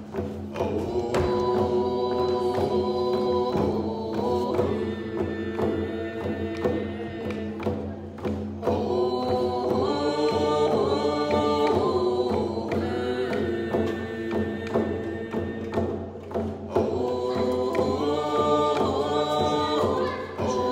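A group of voices singing a song together to a steady beat on hand-held rawhide frame drums, in phrases with brief breaths between them.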